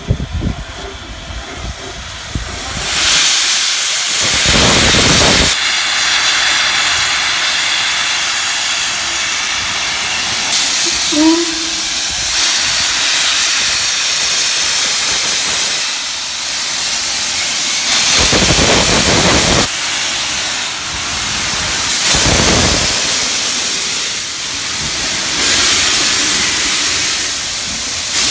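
A steam locomotive venting steam: a loud steady hiss that swells up a couple of seconds in, with three heavier gusts of steam.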